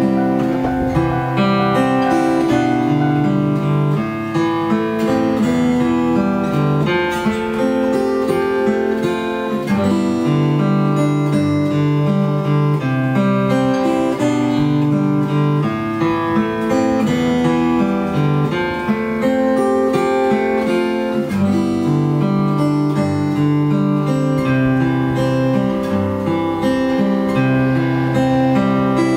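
Solo acoustic guitar playing fingerpicked arpeggios, one note after another.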